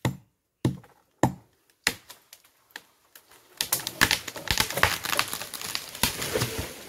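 Sharp chopping strikes on wood, about one every 0.6 s, then a dense crackle of leaves and twigs being pulled and broken off a tree.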